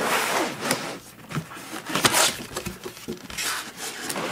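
Cardboard box and polystyrene foam packing being handled and slid against each other, scraping and rustling with sharp knocks, loudest about two seconds in.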